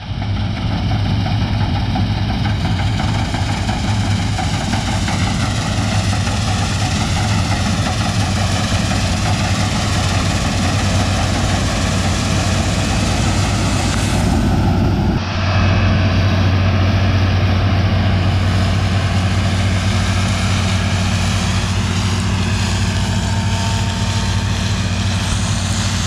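New Holland TX62 combine harvester running steadily as it cuts and threshes field beans: a continuous engine and machinery drone with a strong low hum. The sound shifts abruptly about fifteen seconds in.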